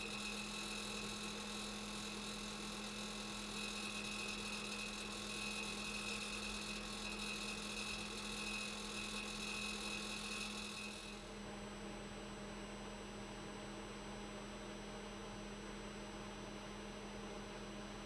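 The 35-year-old Suburban RV propane furnace running, its blower giving a steady hum with a high whine over it, horribly noisy. About eleven seconds in the whine drops out and the furnace goes on a little quieter.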